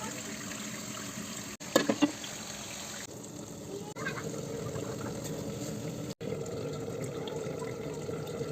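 Water running steadily from a tap, with a brief clatter about two seconds in.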